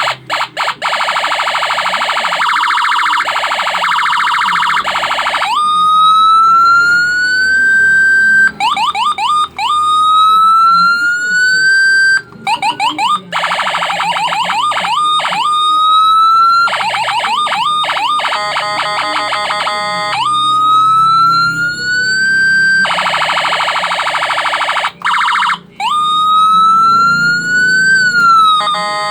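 Loud electronic siren tones generated by an AVR microcontroller program, switching between patterns: a rapid warble, slow rising wails that climb for about two seconds and snap back down, and bursts of quick upward sweeps.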